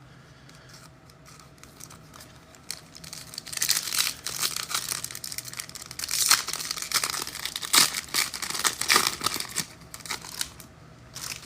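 A trading-card pack's wrapper being torn open and crinkled, with cards rustling as they are handled. It starts about three seconds in and goes on in irregular crackling bursts until shortly before the end.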